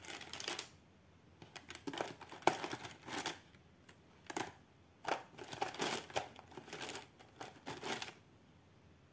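Coloured pencils being rummaged through in their box: spells of rustling and light clicks, with short pauses between them.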